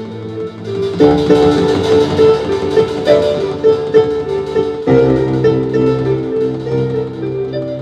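Instrumental music led by plucked strings, a busy melody with steady notes. The accompaniment grows fuller about a second in and again about five seconds in.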